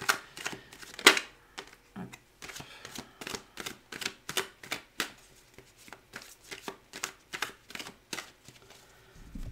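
Tarot cards being shuffled and handled by hand: a run of separate crisp clicks and slaps of the cards, two or three a second, with one louder slap about a second in.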